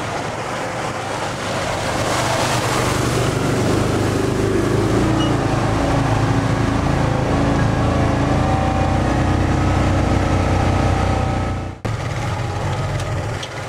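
Off-road side-by-side utility vehicle's engine running as it drives along a rutted dirt trail, its pitch shifting with the throttle. The sound breaks off for an instant about twelve seconds in.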